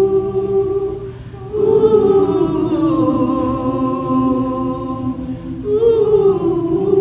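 Voices singing a slow wordless melody in long held notes; after short breaks, about a second and a half in and again near the end, a phrase starts high and slides down.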